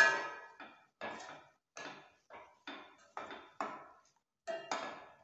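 A steel spatula scrapes and knocks against a stainless steel pan while stirring a sauté of onion, carrot and tomato. It goes at about two strokes a second, and each stroke has a short metallic ring. The first stroke is the loudest.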